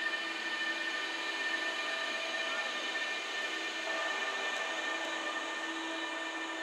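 Electric locomotive (an E483 Bombardier TRAXX) rolling slowly past and moving away, with a steady whine of several high tones over the rumble of its wheels on the rails.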